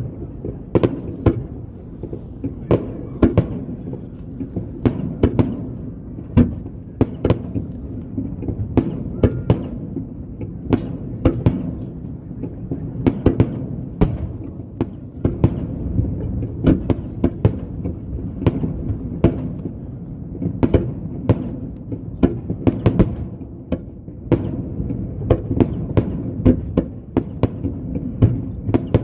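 Aerial fireworks shells bursting in quick succession: sharp bangs, irregular at about one to two a second, over a continuous low rumble.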